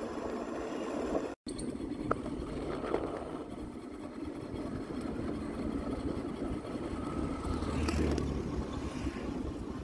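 Wind and tyre noise from riding an electric scooter along a paved road: a steady low rush with no engine note. It cuts out for a split second about a second and a half in, and a low hum swells near the end as another vehicle passes.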